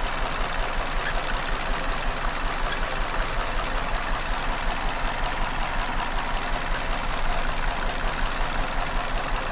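A 2019 Hyundai Elantra's 2.0-litre four-cylinder engine idling rough and unevenly with a steady pulsing, misfiring on cylinder 4, while the ignition coil of cylinder 2 is lifted off. The running changes when that coil is pulled, the sign that cylinder 2 itself is firing properly.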